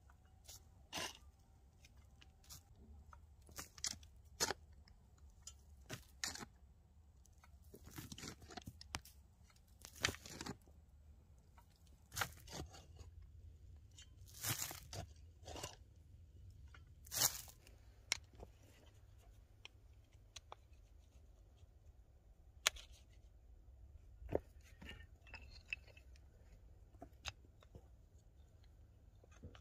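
Crunches and scrapes of dry, stony soil and loose flat stones being worked by hand: short, sharp strokes every second or two, fewer and fainter in the last third.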